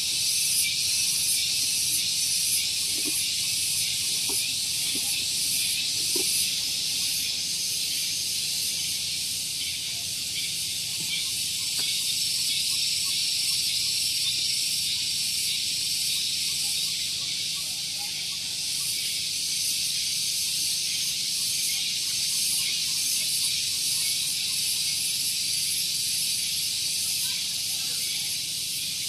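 Cicadas singing in a loud, shrill, unbroken chorus: a high buzz with a fast pulsing flutter on top.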